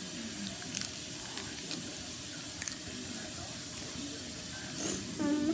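Steady background hiss with a few light clicks and taps, and a child's voice starting briefly near the end.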